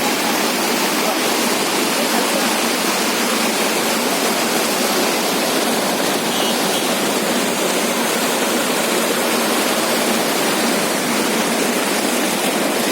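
Floodwater rushing steadily, a loud unbroken roar of fast-flowing water.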